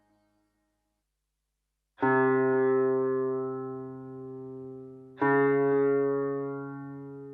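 Sampled sitar from the RDGAudio Real Sitar 3 software instrument: two single plucked notes about three seconds apart, each ringing with a low tone beneath and slowly fading.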